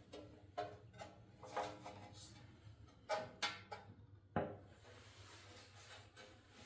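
Fuel tank being shifted and pressed onto its frame mounts: a series of light knocks and clunks with some ringing, the loudest about three to four and a half seconds in.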